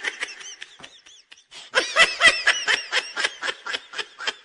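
Person laughing, as a sound effect. A giggle trails off, and about a second and a half in a run of quick, high-pitched snickering laughs follows, several a second, dying away near the end.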